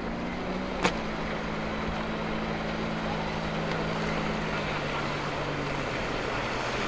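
Outboard motor on a small inflatable boat running at speed, over a steady rush of water and spray. The engine's hum fades out after about five seconds, leaving the rushing. A single sharp click comes about a second in.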